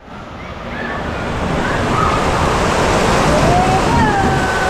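Steady rush of splashing water with a distant hubbub of voices and faint shrieks over it, fading up over the first second or two.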